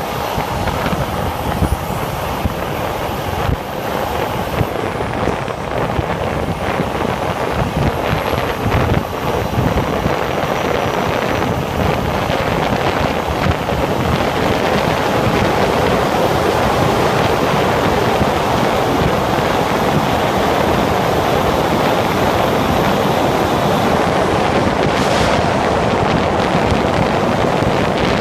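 Steady wind rush and road noise of a motorcycle travelling at highway speed, growing a little louder after about ten seconds.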